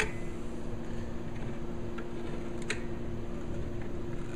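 Hot glue gun's trigger clicking a few times as glue is fed out onto the wood, each a short sharp click, over a steady low hum.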